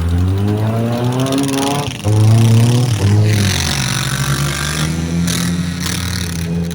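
Demolition derby cars' engines revving hard, the pitch climbing and dropping again several times, with a sudden jump in loudness about two seconds in.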